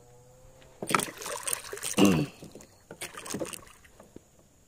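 Splashing and knocking at a small boat in three loud, sudden bursts, about one, two and three seconds in.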